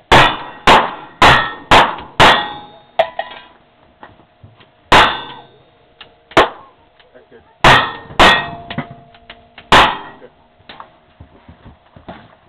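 Single-action revolver fire, ten shots in two strings of five. The first five come fast, about half a second apart. The second five are slower and uneven. Struck steel targets ring after the shots.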